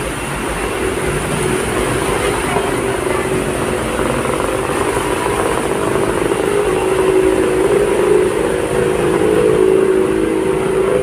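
Cars and motorcycles driving through floodwater on a street, tyres sloshing and engines running over a steady wash of heavy rain and water. The engine hum grows louder in the second half as vehicles pass close by.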